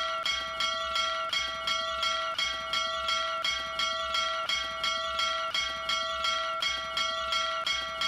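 Small hanging brass bell rung rapidly by pulling its clapper rope, struck about three times a second, its bright ringing tone carrying over unbroken from one strike to the next.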